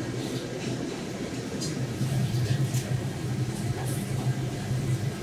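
Kitchen room noise: a steady low hum that swells slightly about two seconds in, with a few faint light clicks, as from a knife touching the wooden cutting board.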